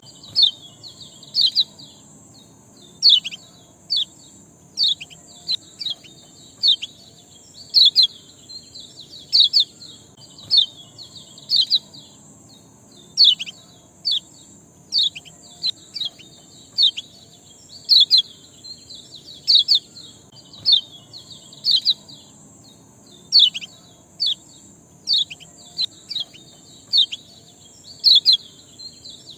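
A small songbird, the 'ciak' of Indonesian bird-keeping, giving short, sharp chirps that fall in pitch, singly or in quick twos and threes every second or two, played as a lure recording to set other birds singing. A steady high hiss runs underneath.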